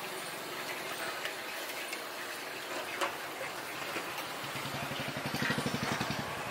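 Street noise with a few clinks of steel utensils; about four and a half seconds in, a vehicle engine runs close by with a fast, even pulse, growing louder near the end.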